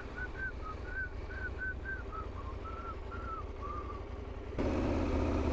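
A run of about a dozen short, whistle-like chirps, roughly three a second, slowly falling in pitch, over a low steady engine rumble. About four and a half seconds in, a louder engine noise sets in suddenly.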